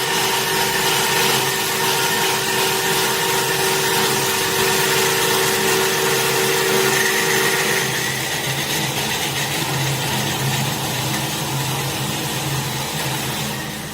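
WK 275SHP saw machine running on a trial cut through square tubing: a steady machine drone with a ringing tone from the blade. About eight seconds in the ringing stops and the running sound changes; it eases off near the end.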